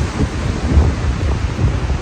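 Wind buffeting the microphone in low, uneven gusts over a steady hiss of ocean surf.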